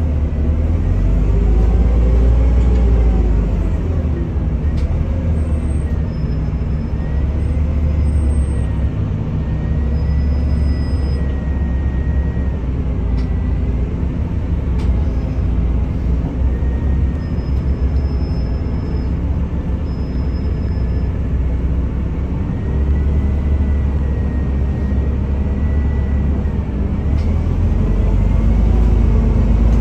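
Inside a NefAZ-5299 city bus: its engine and running gear make a steady low rumble, with a thin whine above it that slowly wavers up and down in pitch.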